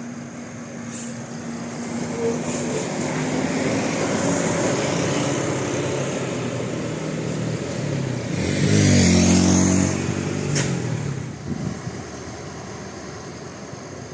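A large road vehicle, likely a bus, approaching and driving past. Engine and tyre noise build up, are loudest about nine seconds in as it passes, then fade.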